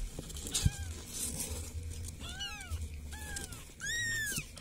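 Very young kittens, eyes still closed, mewing: a string of short, high, thin mews, each rising and falling in pitch. Two or three overlap a little after two seconds in, and the loudest comes near the end. A soft bump sounds under a second in.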